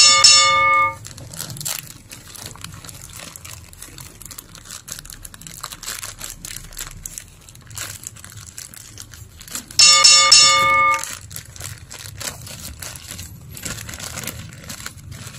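Plastic mailer bag crinkling and tearing as a parcel is opened by hand. Twice, at the start and about ten seconds in, a short bell-like chime rings out louder than the rustling.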